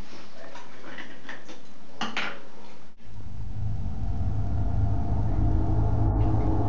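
A few light clinks and taps, like dishes or glass being handled. About three seconds in, these give way abruptly to a low steady drone with held tones that slowly grows louder.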